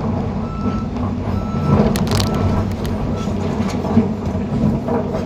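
John Deere 350G excavator's diesel engine running steadily, heard from inside the cab. A nearby machine's reversing alarm beeps repeatedly through the first few seconds, and there is a sharp clank about two seconds in.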